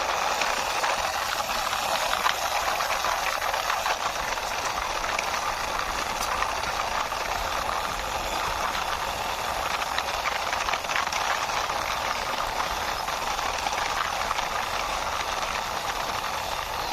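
Wheels of a toy six-wheeler fire rescue truck rolling and scraping along a rough outer wall as it is pushed by hand: a steady gritty rolling noise with small clicks and rattles throughout.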